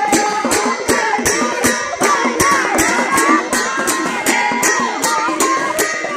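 A group of women singing an Assamese devotional folk chant in unison, clapping their hands together in a steady beat, about two to three claps a second.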